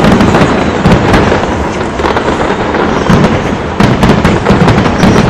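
Large fireworks display: a dense, continuous barrage of booms and crackling reports, easing a little midway, then a fresh flurry of sharp bangs about four seconds in.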